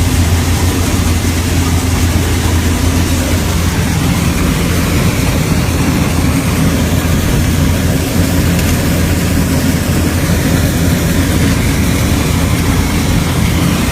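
Combine harvester running in the field while harvesting corn, a steady low rumbling from its engine and threshing machinery heard from the cab. A rumble like this means a lot of corn is going in, the sign of a heavy, good-yielding crop.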